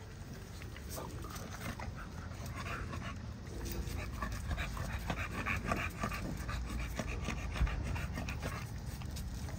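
American Bully chewing raw beef organ meat, with wet, irregular smacking and clicking as the jaws work and breathing between bites.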